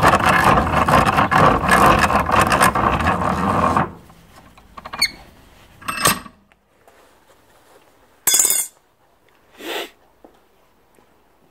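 Cast-iron bench vise being tightened on a tool: a loud, grating scrape from the turning handle and screw for about four seconds. A few short knocks and a sharp metallic clink with a brief ring follow.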